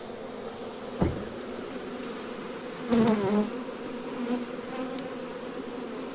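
Honey bee swarm buzzing steadily. There is a sharp knock about a second in, and a louder, wavering buzz for about half a second at around three seconds.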